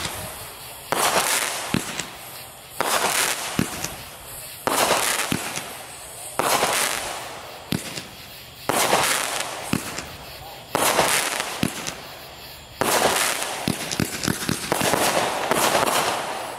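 Black Cat "Two Minute Show" 500-gram multishot cake firing, a shot about every two seconds. Each shot is a short thump from the launch, then a sharp burst high up that trails off over a second or so.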